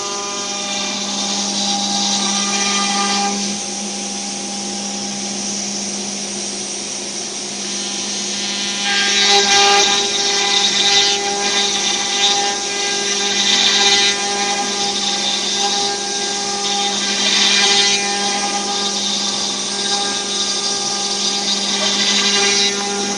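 CNC wood router's spindle running with a steady whine while the bit cuts wood. The hissy cutting noise swells and eases several times from about nine seconds in.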